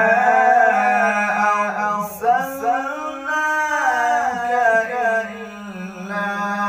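A man reciting the Quran in the melodic qirat style, drawing out long held vowels with ornamented rises and falls in pitch, with a short break about two seconds in.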